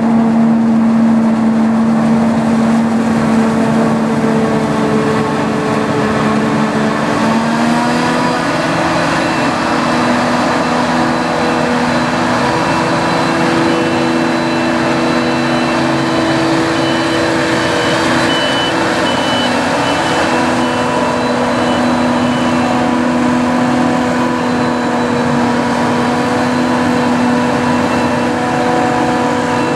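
Claas Jaguar 870 forage harvester running under load while chopping maize: a steady heavy engine drone with a high whine over it, its pitch stepping up a little about a quarter of the way through. Tractor engines run beside it, and a short run of high beeps comes about two-thirds of the way through.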